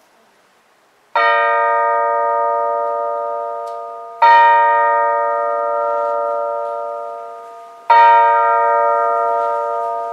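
A small bell mounted on a staff is rung three times, about three seconds apart, each stroke ringing on and fading slowly before the next.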